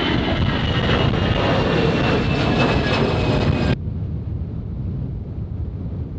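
Airliner engines at takeoff, loud and steady, with high whining tones that slowly fall in pitch as the plane moves away. The sound cuts off abruptly a little over halfway through, leaving low wind rumble on the microphone.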